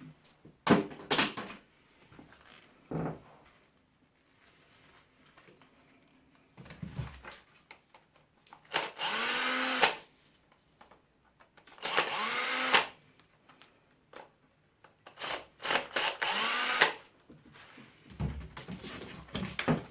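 Power drill run in three short bursts of about a second each, the motor spinning up in pitch at the start of each, with a few knocks and clatters of handled parts between.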